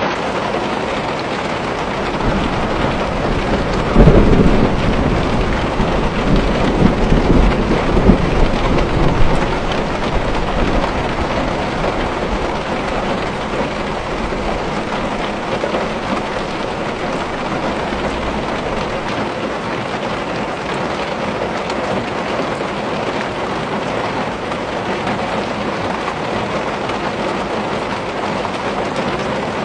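Steady rain pattering on a window pane. About four seconds in, a rumble of thunder breaks in suddenly and rolls on, fading out after about six seconds.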